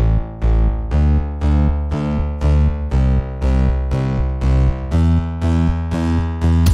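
Background music: a synthesizer or electric piano playing a steady repeating pattern of notes, about two a second, over a deep bass line.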